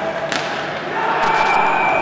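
On-ice ice hockey sounds: a sharp knock about a third of a second in, then held shouts from players and a few spectators from about a second in.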